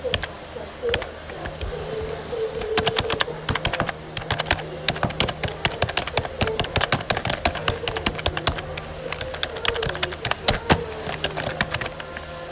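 Rapid, irregular clicking and tapping, like fingers typing on a keyboard, with a faint wavering hum underneath.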